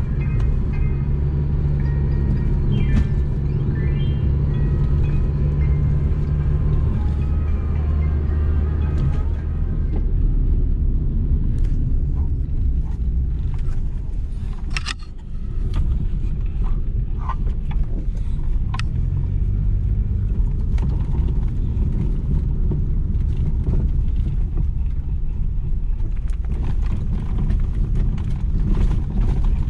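Steady low rumble of a vehicle on the move, with scattered clicks and knocks and a brief dip in level about halfway.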